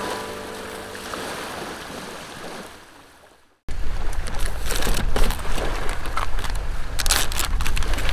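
The last notes of a music jingle fade out over gentle waves lapping at the shore. After an abrupt cut at about three and a half seconds, wind buffets the microphone while a plastic zipper bag crinkles as it is pulled from its box and opened.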